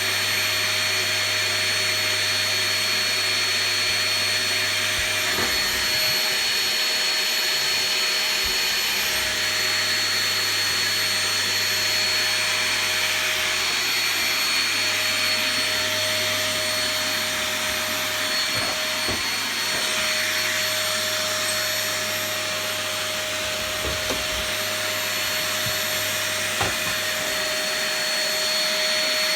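Cheap Epic-brand household vacuum cleaner running steadily with a constant whine, with a few light knocks scattered through.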